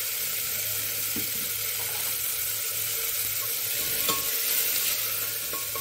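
Chopped onion, garlic and ginger sizzling steadily in hot mustard oil in a steel pressure cooker while being stirred with a steel ladle, which clicks against the pot a few times.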